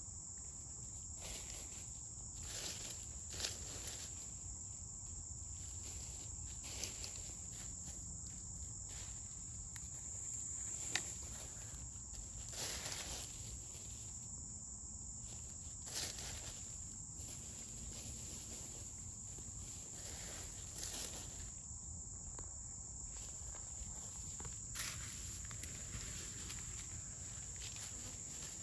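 A steady high-pitched insect drone in the woods, with irregular crackles and rustles of dry leaf litter as ISA Brown hens scratch and peck at the ground.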